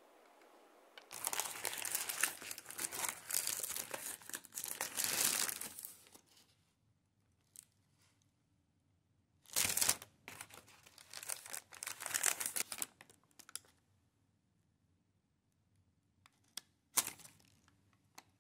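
Paper pastry bag being crinkled and torn open by hand, in bouts: a long stretch of rustling and tearing early on, another burst about halfway through, and a short crinkle near the end.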